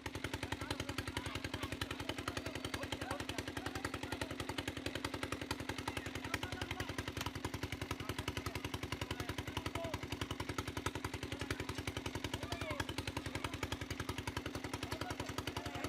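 Engine of a dewatering pump running steadily, with a fast, even knocking beat, as it pumps water out of a fish pond. Faint voices come through over it.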